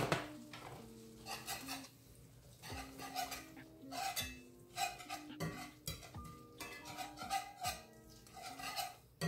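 A utensil stirring and scraping in a cast-iron skillet of thick gravy, in a string of short irregular strokes. A sharp knock opens it, and quiet background music runs underneath.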